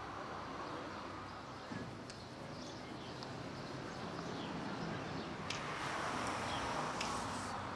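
Quiet outdoor ambience: a steady background hiss with scattered faint bird chirps, slowly growing louder toward the end.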